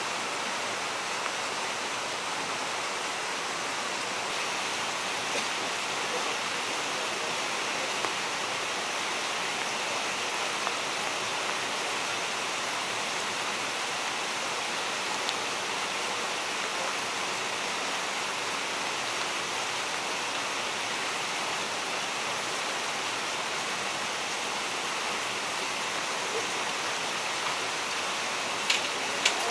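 Steady rush of water flowing through a salmon hatchery's tanks and channels. Two short clicks near the end.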